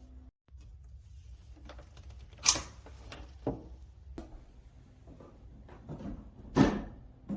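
A series of clicks and knocks from handling a Winix air purifier's housing and filters during a filter change, with two louder knocks, one about two and a half seconds in and one near the end.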